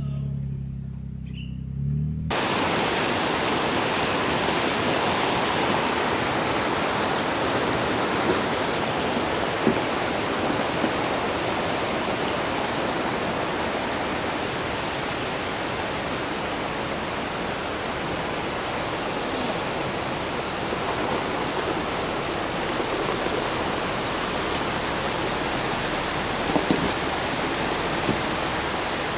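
Jeep Wrangler engine running low for about two seconds, then cutting off abruptly, followed by the steady rush of a mountain creek cascading over rocks, with a few faint knocks.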